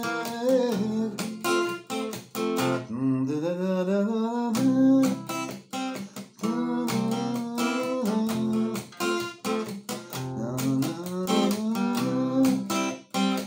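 Acoustic guitar strummed in chords, with a man's voice singing along.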